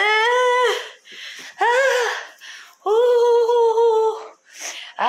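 A woman's voice singing wordless held notes: three sustained notes, the last and longest about three seconds in, with short breathy sounds between them.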